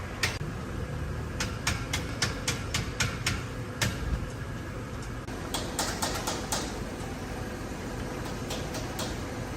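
Sharp taps or knocks over a steady low hum: a regular run of about four a second, then scattered strikes and a short cluster later on.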